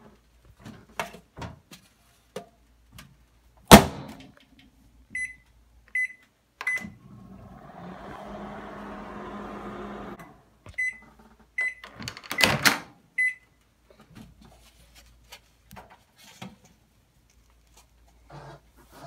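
Panasonic Genius Sensor 1250 W microwave oven in use. A loud bang about four seconds in is followed by three high keypad beeps, then the oven runs with a steady hum for about three seconds and stops. More beeps and a loud clatter come around twelve to thirteen seconds in.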